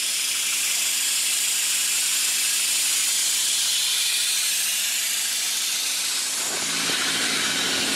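A steady, loud hiss.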